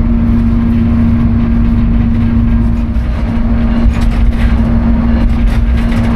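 GEU-40 diesel-electric locomotive running as the train rolls into a station: a loud, steady low rumble with a constant hum, and a few sharper rattles in the second half.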